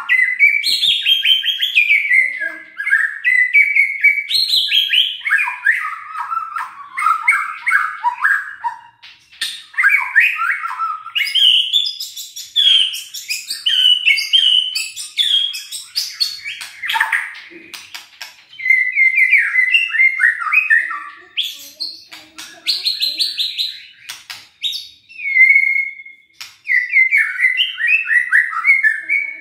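White-rumped shama (murai batu) singing a long run of varied, fast whistled and chattering phrases, broken by short pauses. Near the end it holds one steady whistle before going back into quick trills.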